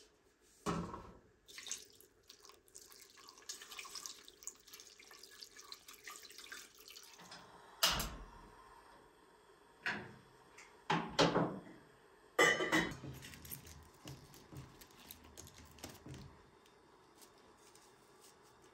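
Water poured from a small pan into a stainless steel stockpot, a rushing splash lasting several seconds, followed by several sharp metal knocks and clanks of pots and utensils at the stove.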